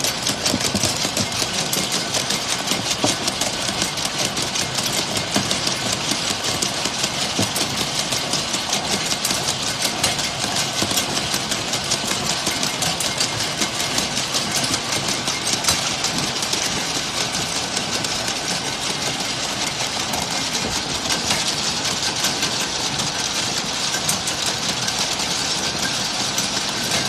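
Ultrasonic bottle washing machine running: a steady mechanical clatter of rapid ticks over a steady hiss.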